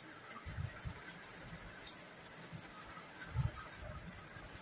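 Quiet sounds of eating by hand from steel plates, fingers mixing rice, with a few dull low thumps about half a second in and again about three and a half seconds in.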